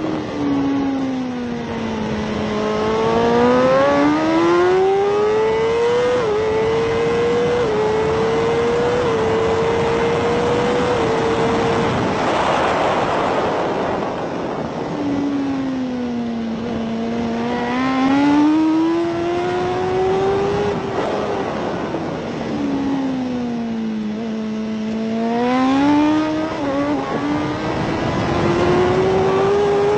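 BMW S1000RR superbike's inline-four engine heard onboard at racing pace. Its pitch falls away under braking into each corner, then climbs in steps through the upshifts on the way out, three times over. A rushing noise swells briefly at high speed about halfway through.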